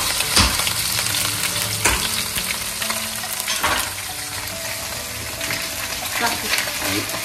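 Whole fish sizzling as it pan-fries in hot oil in a nonstick frying pan, with a few sharp knocks as the pan is moved on the hob.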